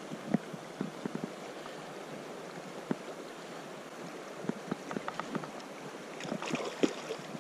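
River current flowing steadily around a wading angler's legs, with scattered short knocks and splashes, several in quick clusters in the second half.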